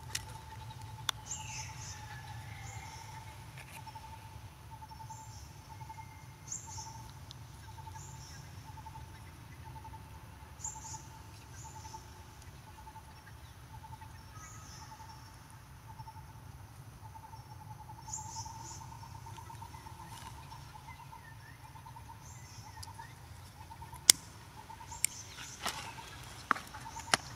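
Outdoor background of animal calls: a steady pulsing trill with short high chirps every second or two, over a low hum. Several sharp clicks come near the end, the first of them the loudest sound.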